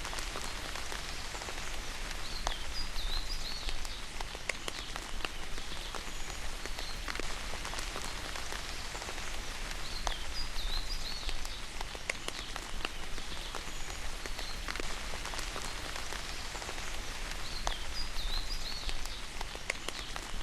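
Steady rain, with many separate drops landing close by as sharp clicks over an even hiss. A short wavering bird call recurs about every eight seconds, three times in all.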